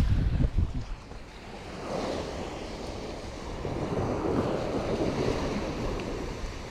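Surf washing onto the beach, swelling from about two seconds in and slowly fading. Wind gusts on the microphone in the first second.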